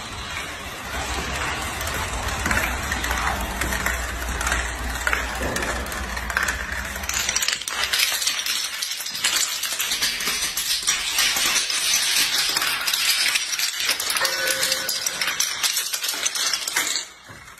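Toy dominoes toppling in a chain: a continuous rapid clatter of many small pieces clicking against each other and the floor, with a low rumble under it for the first seven seconds or so. Further on, dominoes tumble down stair steps, and the clatter cuts off just before the end.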